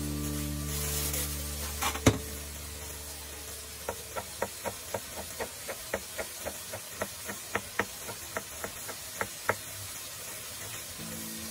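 Knife chopping cabbage on a cutting board: an even run of short, sharp chops, about three or four a second, starting about four seconds in and stopping shortly before the end. There is a single louder knock about two seconds in.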